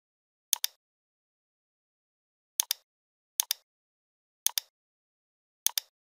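Computer mouse button clicking five times, each click a quick press-and-release double tick, at irregular spacing of about one to two seconds, against dead silence.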